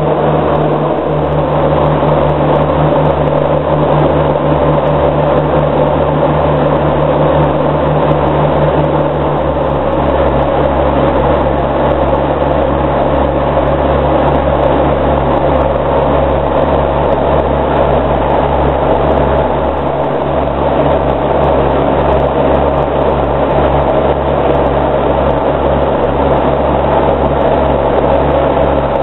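Steady drone of a de Havilland Canada Dash 7's four Pratt & Whitney PT6A-50 turboprop engines and propellers in flight, heard from inside the cockpit as a constant low hum under a wash of noise.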